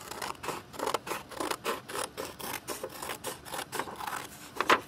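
Scissors cutting through a large sheet of paper, a quick run of short snips at about four a second, with one louder snip near the end.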